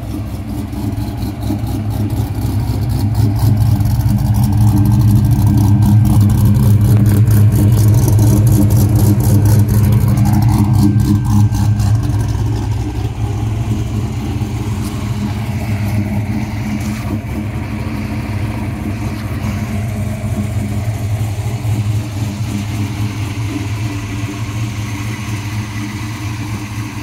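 1995 Ford Mustang GTS with a 347 stroker small-block V8 idling steadily through a new 3-inch Dynomax Ultra Flo exhaust. The exhaust note is louder through the first half and eases off somewhat later.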